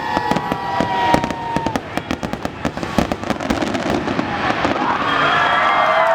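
Fireworks going off in a rapid barrage of many sharp bangs and crackles, typical of a show finale.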